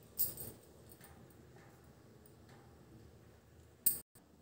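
Quiet room tone with a short burst of noise just after the start and a single sharp click near the end, followed by a split second of dead silence.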